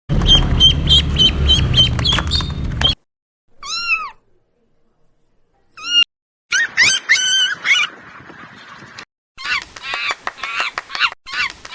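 Animal calls from several short clips in a row, with silent gaps between them: first a string of short high calls over a loud low rumble, then a single rising-and-falling call, then runs of quick pitched calls.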